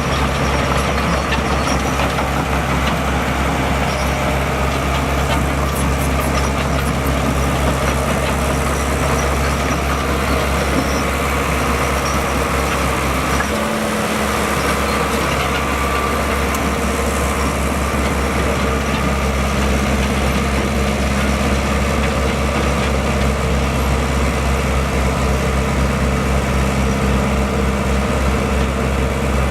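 Diesel engine of heavy earthmoving equipment running steadily, with a brief change in its note about fourteen seconds in.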